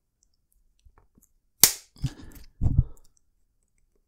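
A plastic cable tie's end snipped off with a single sharp snap about a second and a half in, followed by a couple of duller handling knocks.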